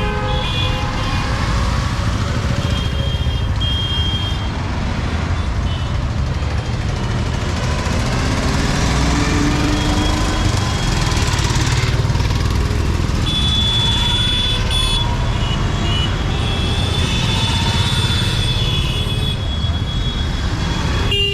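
Busy street traffic: engines running with a steady low rumble, an engine revving up about eight seconds in, and a high horn-like tone sounding on and off in the second half.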